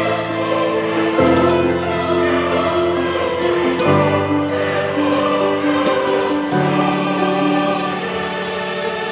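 Background music of a choir singing long held chords that change every two to three seconds.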